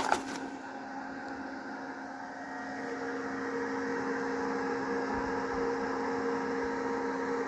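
A sharp metallic clink right at the start, then a semi-automatic welding machine humming steadily with a low tone and its overtones, a little louder from about three seconds in.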